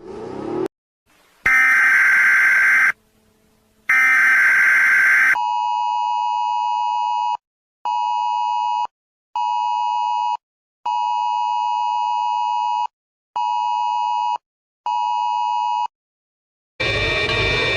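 Emergency Alert System alarm: two loud digital data-burst screeches, then the two-tone attention signal sounding in on-off pulses, long-short-short, twice over. Music starts near the end.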